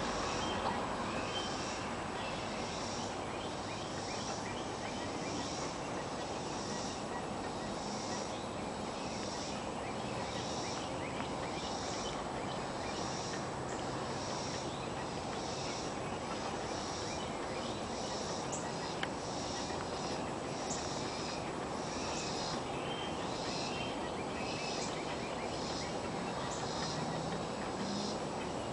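Outdoor background hiss with an insect chirping in a steady, regular pulse, a little more than once a second. One sharp click comes about two-thirds of the way through.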